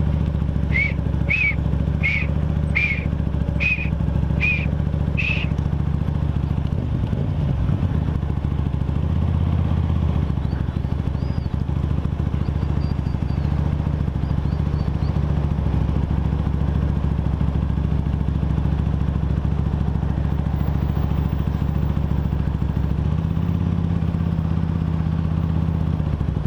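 Comet GTR motorcycle with an aftermarket exhaust running steadily. The engine note wavers about eight seconds in and shifts again near the end. Seven short, evenly spaced high beeps sound over the first five seconds.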